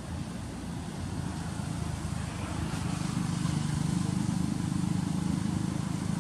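A motor engine running steadily as a low hum, growing louder about halfway through.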